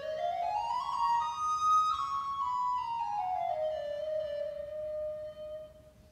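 Solo recorder playing a run of quick notes that climbs and then steps back down to a long held note. The note fades out about five and a half seconds in.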